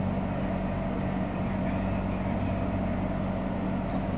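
Steady low hum with a constant hiss behind it, unchanging throughout.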